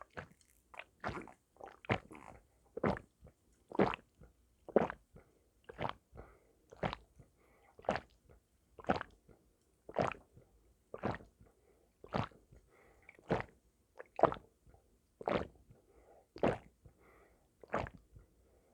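A person gulping iced lemon tea in steady, repeated swallows, about one gulp a second.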